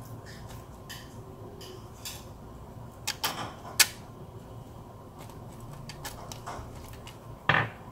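Silicone pastry brush dabbing a salt-and-vinegar wash onto pork skin in a foil-lined air fryer basket: scattered soft wet taps and foil crinkles over a low steady hum. Louder clicks come about three seconds in, and a knock comes near the end.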